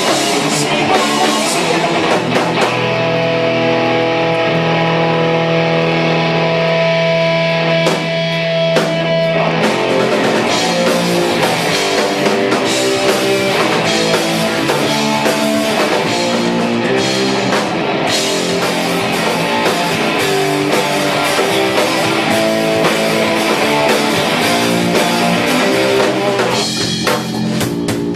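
Live punk rock band playing an instrumental passage on electric guitars and drum kit. A few seconds in the drums and cymbals drop out and held guitar notes ring on; near ten seconds the full band with drums comes back in.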